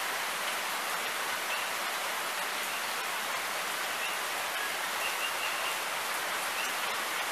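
Steady rain falling, an even hiss, with a few faint short high chirps about five seconds in.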